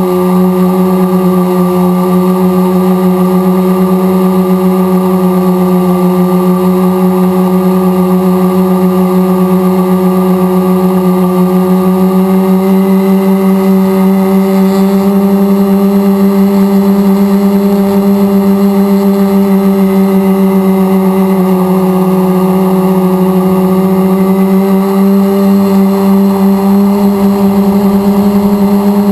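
RC multirotor's electric motors and propellers running with a loud, steady whine as it flies low, the pitch dipping slightly about three-quarters of the way through.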